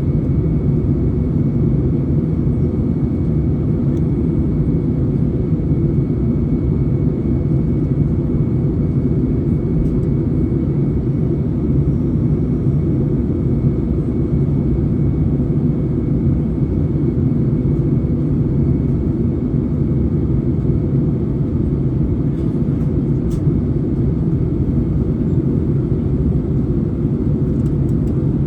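Steady low rumble of a British Airways Airbus A320 airliner in flight, its engine and airflow noise heard from inside the cabin, with a faint high whine running under it.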